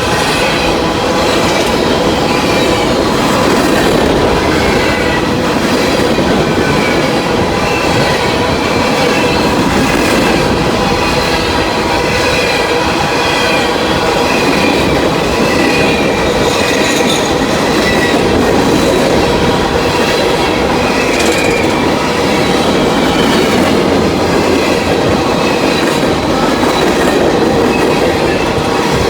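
Freight train cars rolling steadily past at close range, with a continuous loud rumble. Steel wheels squeal in thin high tones, and a faint regular clack comes from the wheels crossing rail joints.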